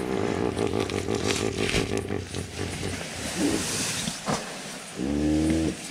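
Hippopotamus calling: a long, low call in the first few seconds, then a shorter grunt about five seconds in that rises and falls in pitch.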